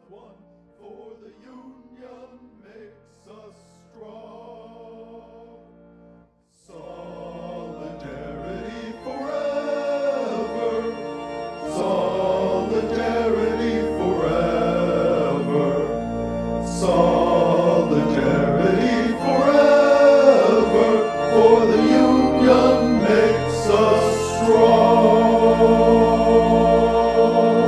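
Music: a soft, sparse instrumental passage, then after a brief break about seven seconds in, a much louder piece with a choir singing that builds toward the end.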